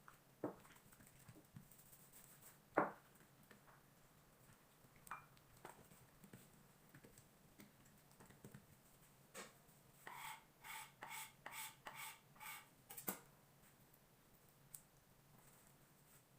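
Faint, scattered taps and knocks of hand work with dough and utensils on a kitchen work surface, then a quick run of about eight short strokes, roughly three a second, from about ten seconds in.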